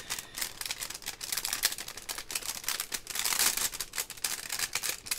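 Clear plastic packaging sleeves crinkling as hands open them and slide items out: a dense run of small, irregular crackles.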